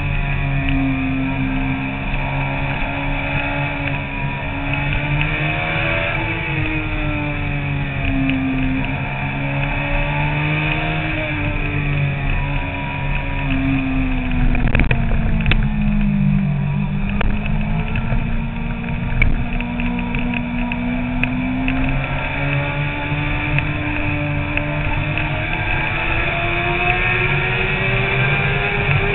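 Sport motorcycle engine under way, its pitch falling and rising as the throttle is opened and closed. The pitch drops to its lowest about halfway through, while the bike is in a tunnel, then climbs steadily toward the end. Wind rush runs underneath.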